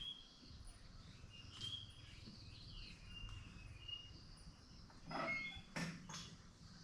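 Small birds chirping: short, high, clear chirps over a faint steady background. About five seconds in, a few louder knocking or rustling sounds break in.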